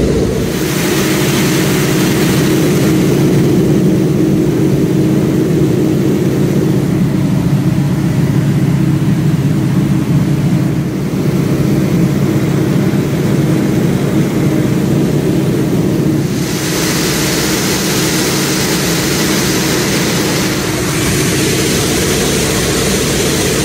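Steady drone of a propeller aircraft's piston engine heard from inside a cockpit, with a hiss of rushing air that grows louder about two-thirds of the way through.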